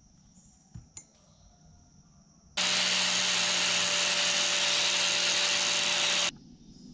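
Two light knocks, then an angle grinder runs steadily on steel tubing for almost four seconds, starting and stopping abruptly.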